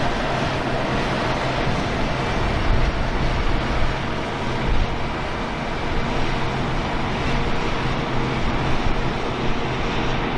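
International 1460 Axial Flow combine running steadily, its diesel engine humming under the noise of the threshing machinery.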